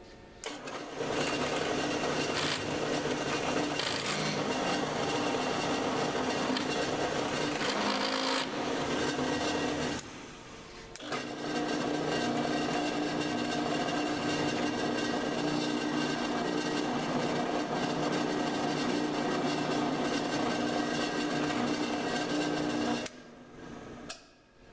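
Drill press running with a steady motor hum while a center drill spots hole locations in a clamp-body bar. It stops briefly about ten seconds in, runs again, then winds down near the end.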